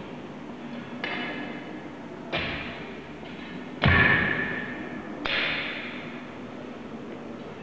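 Spades being driven into a bed of soil: four sharp knocks about a second and a half apart, the third the loudest, each with a ringing tail.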